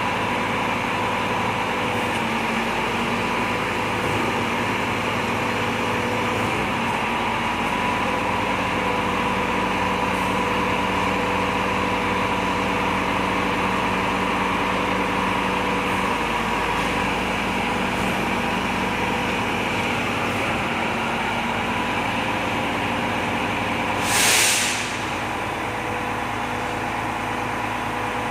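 Volvo FM 370 truck's diesel engine running steadily at idle, with a short, loud hiss of released air near the end.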